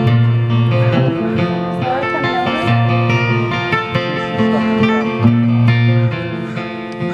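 Two guitars playing together without singing: a strummed acoustic guitar and an electric guitar played through an amplifier, over held low notes.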